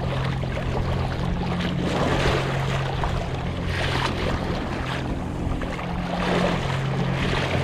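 Choppy water splashing and slapping against a kayak's hull as it motors through waves, the splashing swelling every second or two, over the steady low hum of a 40 lb thrust Minn Kota electric trolling motor running at full speed. Wind buffets the microphone.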